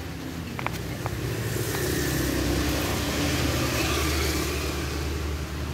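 A motor vehicle's engine running steadily, swelling in the middle and easing off near the end. A few light clicks come in the first second.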